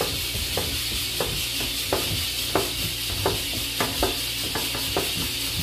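A cold block of mozzarella scraped down a hand cheese grater in short strokes, about one and a half a second. Under the strokes runs a steady hiss from a pressure cooker held at pressure on the stove.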